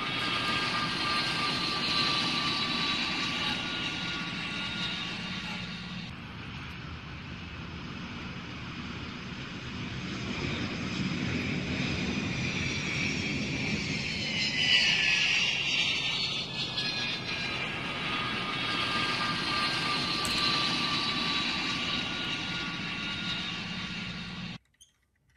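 Dubbed-in sound effect of a small airplane's engine: a steady drone with a swoop in pitch about halfway through as the plane goes by, cutting off abruptly near the end.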